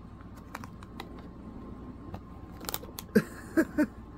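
Foil chip bag crinkling faintly in the hands as it is held to the nose, then about three seconds in a sniff and three short vocal sounds close together.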